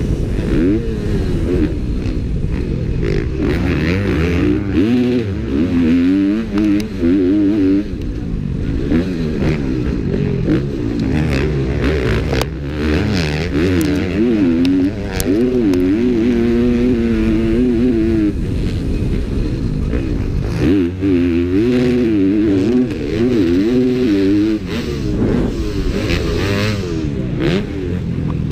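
Onboard sound of a motocross bike's engine racing round a dirt track, the pitch rising and falling over and over as the rider works the throttle through the gears. Occasional sharp knocks and clatter cut in.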